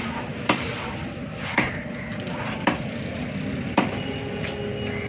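Heavy knife chopping through fish on a wooden log block: sharp knocks of the blade into the wood about once a second, over steady background noise.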